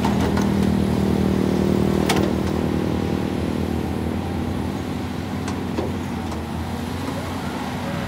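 Caterpillar 320D tracked excavator's diesel engine running steadily under work as the boom and bucket move, with a few sharp clanks about two seconds in and again around five and a half seconds.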